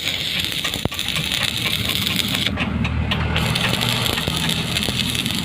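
Electric arc welding: a steady crackling, sizzling hiss from the arc, with scattered sharp ticks and a low hum underneath.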